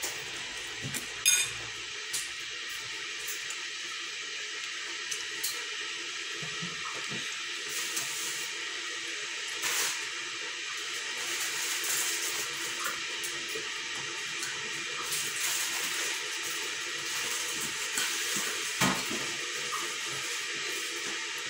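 Steady hissing noise throughout, with a few sharp clinks now and then.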